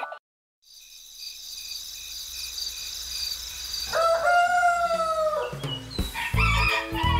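A rooster crows once, one long drawn-out call with a slight upward bend, over a faint high steady trill; it is a rooster-crow effect marking daybreak. Cheerful children's music with chimes and bass starts near the end.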